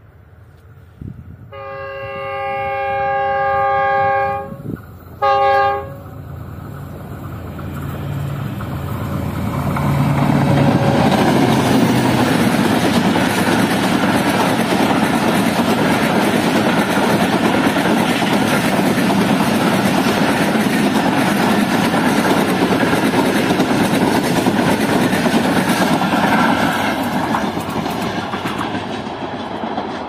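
GU20 (GE U20C) diesel-electric locomotive's air horn, one long blast of several tones at once lasting about three seconds, then a short second blast. Then the passenger train passes close by, its wheels and coaches making a loud steady rumble and clatter on the rails that eases off near the end as it draws away.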